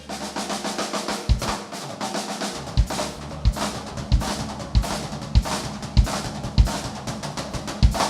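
Drum kit being played: quick snare and cymbal strokes throughout, with the bass drum coming in about a second in and hitting roughly every two-thirds of a second.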